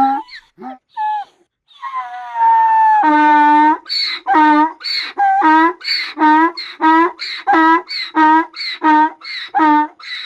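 Donkey braying: a few short calls, then a long drawn-out note, then a rapid, even run of loud hee-haw notes at about three a second.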